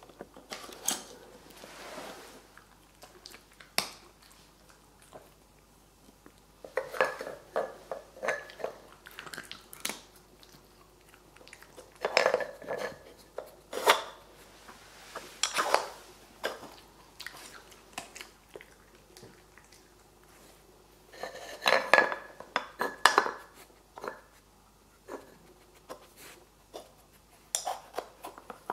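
Plastic cups and sliding lids clacking and knocking against a Karlie Doggie Brain Train wooden puzzle board as a dog noses and paws them off in search of treats. The clatter comes in irregular bursts of several knocks, with quiet stretches between.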